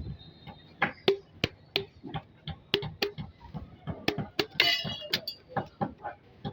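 Irregular run of sharp knocks and clinks, two to four a second, some with a short ringing tone, and a busier cluster of clatter about four and a half seconds in.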